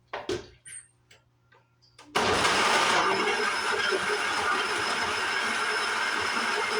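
A few light knocks, then about two seconds in an electric blender switches on and runs steadily, blending the coconut popsicle mixture.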